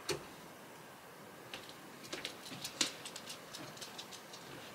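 A sharp click at the start, then, after a short pause, a scatter of faint, irregular clicks and light taps.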